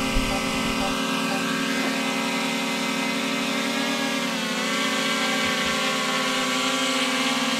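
DJI Mini 3 Pro drone hovering low, its propellers giving a steady whine. The pitch dips briefly about four and a half seconds in, then returns.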